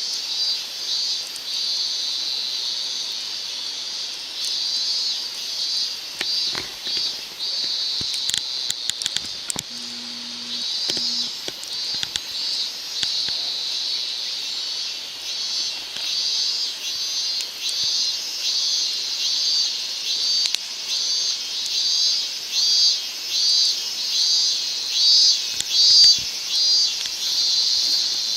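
Insects shrilling in a steady high-pitched chorus that pulses a few times a second, with a few sharp clicks about a third of the way in.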